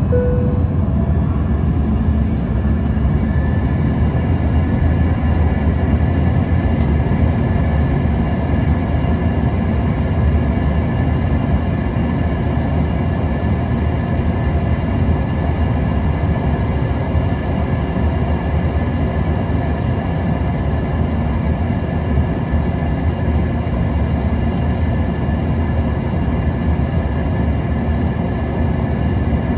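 Cabin noise inside an Embraer ERJ-145XR from a rear seat: its rear-mounted Rolls-Royce AE 3007 turbofans run steadily, a deep rumble with a steady engine whine on top. A few high whine tones fall in pitch over the first couple of seconds, then everything holds steady.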